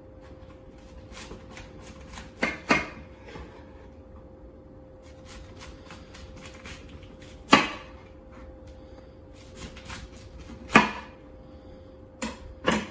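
Kitchen knife cutting through a raw head of cauliflower on a wooden cutting board: faint crunching between about six sharp knocks of the blade on the board, a pair about two and a half seconds in, two louder single knocks in the middle, and another pair near the end.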